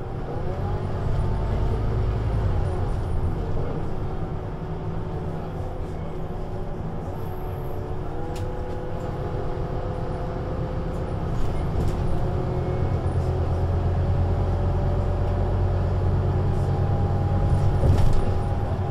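Scania CK280UB city bus (Scania Citywide LE) with its 280 hp five-cylinder diesel running under way, with a whine that rises slowly in pitch as it gathers speed. It gets louder in the second half, most of all near the end.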